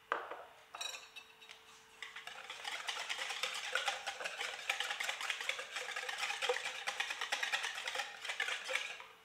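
A couple of sharp knocks in the first second, then a small wire whisk beating a wet egg-and-amasi mixture in a mixing bowl: fast, steady clicking and swishing for about seven seconds, stopping just before the end.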